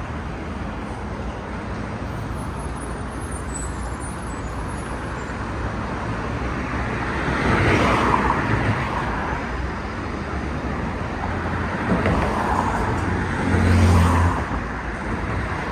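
City street traffic: a steady roadway hum with cars passing by, swelling about halfway through, again near 12 seconds, and loudest near the end, when a heavier vehicle's engine drones as it goes by.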